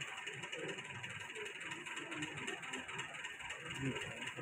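Faint room noise: a steady hiss with scattered indistinct low sounds and light clicks.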